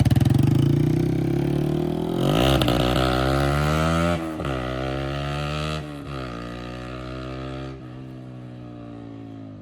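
Yamaha R15 V4's single-cylinder engine through a loud aftermarket exhaust with its dB killer fitted, revving up as the bike pulls away. The pitch climbs, drops with an upshift about four seconds in and again about six seconds in, and the sound fades as the bike moves off.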